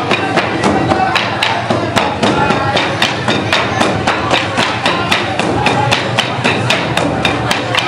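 Traditional Burundian royal drums, wooden drums carried on the players' heads and struck with sticks, beating a quick, even rhythm of about four to five strikes a second, with voices over the beat.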